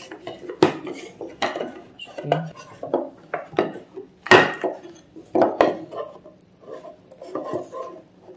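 Wooden parts of a handmade folding table knocking and clacking together and against a wooden bench as the tabletop boards are lifted and a leg is fitted into its slots. The knocks come irregularly, about a dozen of them, the loudest about four seconds in.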